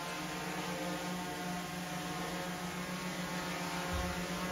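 Small camera drone hovering indoors, its propellers giving a steady buzzing hum, with a brief low rumble about four seconds in.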